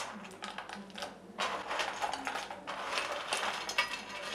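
Dry soya chunks rattling and rustling against a steel plate as a hand scoops them up and tips them into a steel pot, in several clattering rushes.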